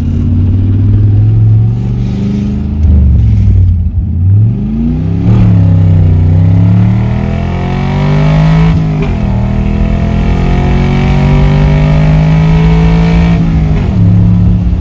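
Carbureted 4.8-litre V8 in a 1999 Chevy S10, heard from inside the cab, pulling hard through the gears of its four-speed manual. The engine note climbs and then drops at each upshift, about five, nine and thirteen and a half seconds in.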